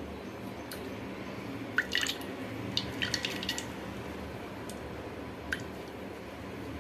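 Coconut milk dripping and squishing as wet ground coconut is pressed by hand through a small steel strainer into a steel bowl, with a few light clicks scattered through it, clustered around the second and third seconds.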